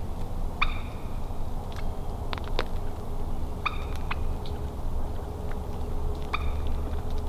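Wild turkey calling three times, one short call about every three seconds, over a steady low rumble, with scattered small clicks.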